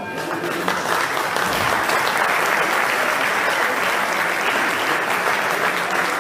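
Audience applauding, building up about a second in and holding steady. At the very start the last of the boxing ring's bell dies away.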